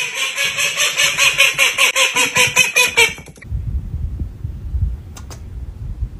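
An animal's rapid run of loud, harsh pitched calls, about seven a second, that stops abruptly about three and a half seconds in; after it, only a low rumble.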